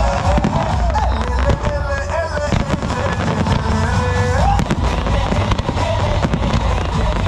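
Aerial fireworks display: shells bursting and crackling in quick succession, with music playing alongside.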